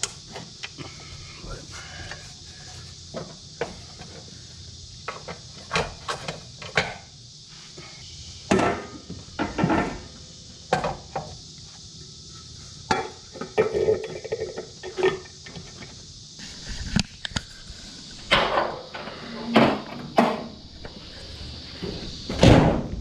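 Irregular metal clinks, knocks and rattles of engine-bay parts being handled and refitted under a truck's hood, with the loudest knock near the end.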